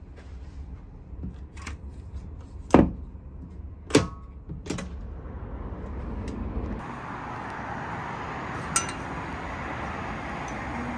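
Hotel room door's metal lever handle and latch clunking as the door is worked: three sharp clicks in the first five seconds. After that comes a steady rushing hiss that starts abruptly.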